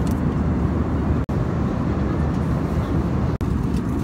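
Airliner cabin noise at cruising altitude: a loud, steady low roar of engines and airflow, broken by two very brief gaps.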